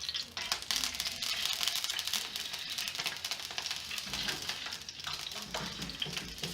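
Pork and chorizo frying, a steady crackling sizzle of fat in the hot pan.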